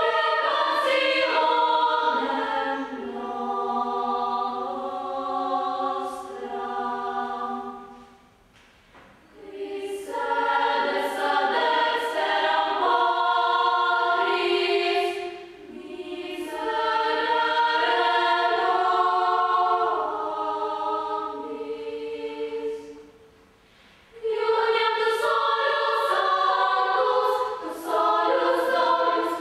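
Girls' choir singing in many voices, in phrases broken by three short pauses.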